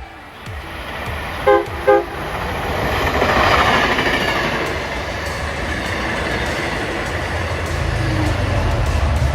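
Train horn giving two short blasts, followed by the rising rush and rumble of a passing train. The rush is loudest about a second and a half after the horn, and a deep rumble strengthens near the end.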